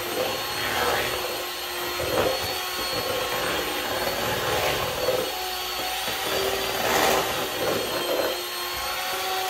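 Electric hand mixer running steadily, its beaters whisking a thick cream-cheese cheesecake mixture, the sound swelling and easing every second or two as it is moved through the mix.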